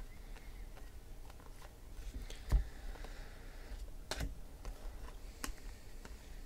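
Stack of baseball trading cards being flipped through by hand, card edges sliding and snapping against each other: irregular light clicks, with louder snaps about two and a half and four seconds in.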